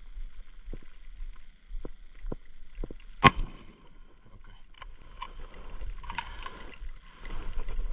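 A single rifle shot about three seconds in: a follow-up shot at a wounded Cape buffalo bull. Around it are a few light knocks and a low wind rumble.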